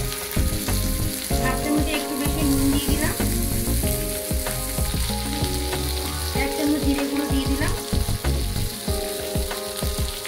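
Potato, eggplant and green chilli pieces sizzling steadily in hot mustard oil in a kadai, with a few light scrapes and knocks. Soft background music of held notes changing about once a second plays along.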